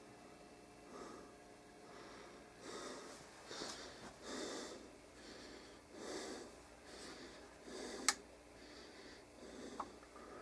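Faint soft rustling or breath-like noises, several short bursts, with one sharp click about eight seconds in and a smaller click near the end.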